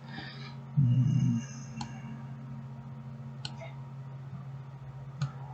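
Three sharp computer-mouse clicks, a second or two apart, over a steady low electrical hum. A short low vocal murmur comes about a second in.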